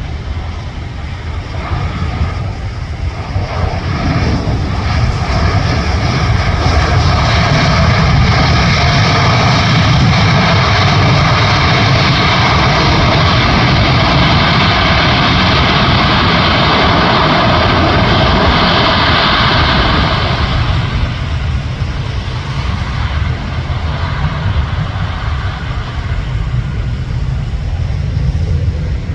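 Airbus A320's jet engines, a loud rushing noise with several whining tones laid over it. It builds over the first few seconds as the airliner lands, stays loud for about fifteen seconds, and falls away about twenty-one seconds in.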